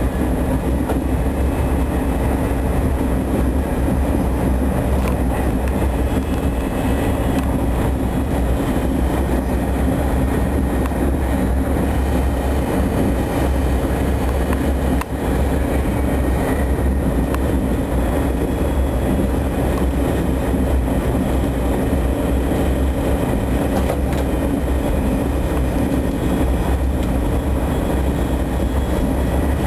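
Passenger train running at speed, heard from inside the carriage: a steady low running noise of wheels on rails and the moving coach.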